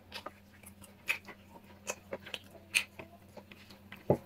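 A person chewing and smacking their lips over a mouthful of chicken curry and rice, with irregular wet smacks every half second or so and a louder one right at the end.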